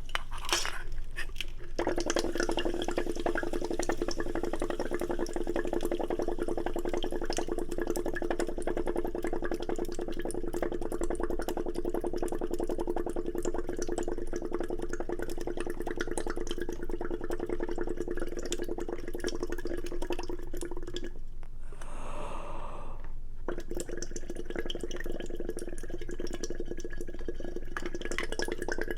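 Wet mouth sounds of slurping and eating close to the microphone, with many small clicks, over a steady hum that drops out for about two seconds near three quarters of the way through.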